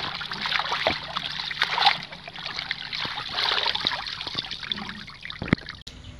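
Water splashing and sloshing in a basin as a hand swishes and rinses a bunch of sweet potato tops. The greens are then lifted out and water trickles back off them, getting quieter toward the end, with one sharp knock near the end.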